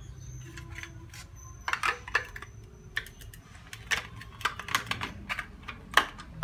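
Irregular clicks and knocks of hard plastic being handled, as a Dyson V10 wall docking station is fitted and pressed against a wall. There is a cluster of sharp taps about two seconds in and more scattered after.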